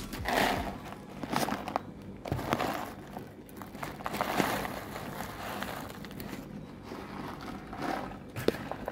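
Plastic bag of dry cat food crinkling and rustling in irregular bursts as kibble is poured out onto a table, with scattered clicks of falling pellets.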